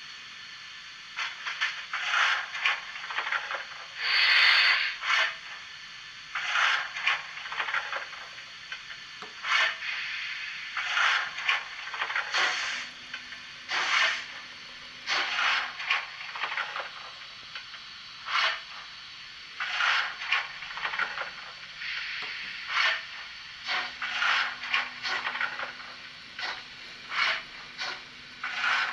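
Sound decoder of a Märklin H0 model Eb 3/5 steam locomotive playing steam effects through its small loudspeaker: clusters of short hissing chuffs, with one longer loud steam hiss about four seconds in. A faint low hum joins twice.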